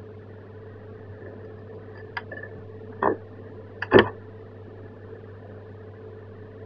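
Steady low hum and hiss of room tone on the microphone, broken by three brief sharp sounds about two, three and four seconds in, the last one the loudest.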